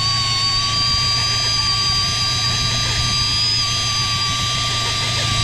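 A small motor running steadily with a high-pitched whine.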